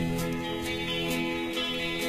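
Band music with guitar, held chords and a steady beat, a cymbal stroke about twice a second.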